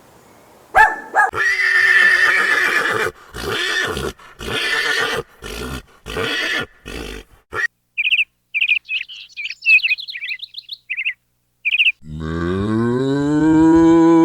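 A large animal's roaring calls in a string of loud bursts, then a small bird chirping in short high notes, then a cow's long moo starting about twelve seconds in.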